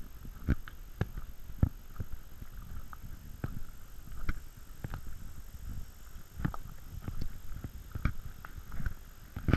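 Footsteps crunching and clacking over loose flat shale stones, at an uneven pace of about one to two steps a second, over a low rumble.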